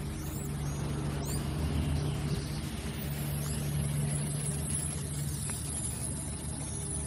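Steady low hum of motor traffic, with a few short high chirps over it.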